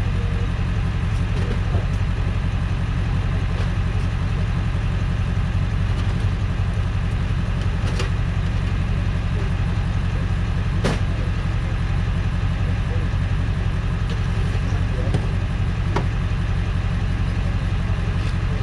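Tow truck engine idling steadily, a low even rumble, with a few light clicks or knocks over it.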